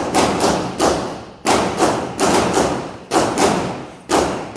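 Handgun shots fired in quick succession, about ten, in short groups with brief pauses between, each followed by a short echoing tail.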